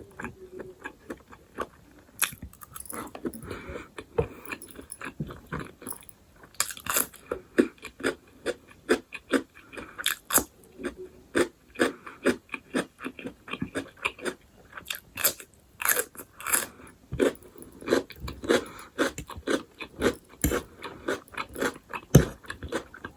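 Crisp crunching and chewing of raw radish close to the microphone, a steady run of sharp bites and chews.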